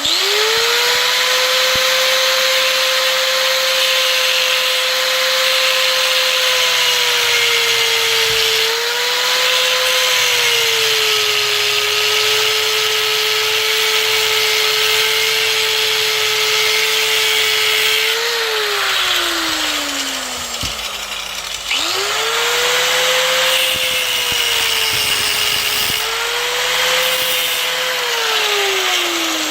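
Small high-speed handheld power tool running with a steady high whine, its pitch dipping briefly as it takes load. It winds down with a falling pitch about two-thirds of the way through, starts up again a few seconds later and winds down once more near the end.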